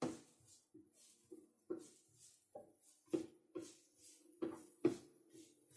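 Wooden spatula stirring and knocking against a nonstick frying pan as chopped shallots and garlic are sautéed: soft irregular knocks and scrapes, roughly two a second, over a faint steady hum.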